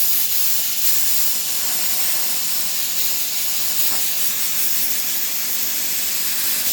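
Soda blaster nozzle blasting paint off with compressed air and soda media: a steady, loud hiss. Underneath runs a faint steady hum from the 100 litre compressor's motor, working to keep up with the air demand.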